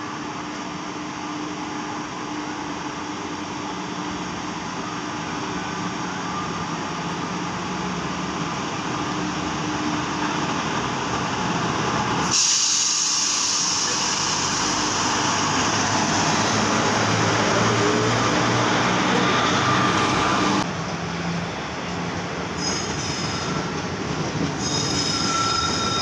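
A WAG5 electric locomotive hauling an express passenger train runs past on the track. Its rumble grows as it approaches, and a loud rushing hiss sets in about halfway through as the locomotive passes. The coaches then roll by, with thin high wheel squeals near the end.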